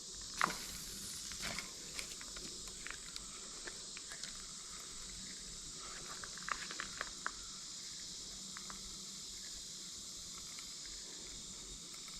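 Steady high-pitched insect chirring with scattered small clicks and ticks, a few of them bunched together about six to seven seconds in.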